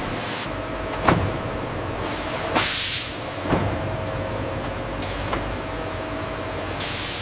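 Factory machinery running with a steady hum and hiss, with sharp knocks about one, three and a half and five seconds in and a short burst of hissing air about two and a half seconds in.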